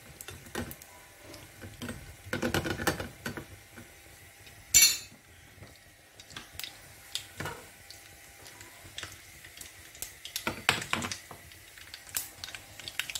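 A steel spoon stirring cashews frying in a small steel pan: scraping and scattered clinks of metal on metal over a light sizzle, with one sharp, loud clink about five seconds in.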